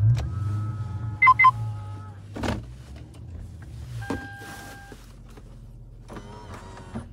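Cabin of a Toyota Celsior: the V8 engine catches with a low rumble that eases over about two seconds to a steady idle. Two quick electronic chime beeps sound about a second in, and a longer steady beep follows around four seconds, with a few soft clicks and rustles in between.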